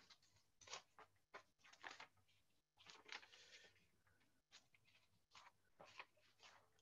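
Near silence on a video-call line, broken by a dozen or so faint, short rustles and clicks.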